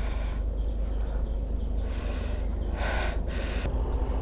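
A person breathing close to the microphone while walking, several short breaths, over a steady low rumble.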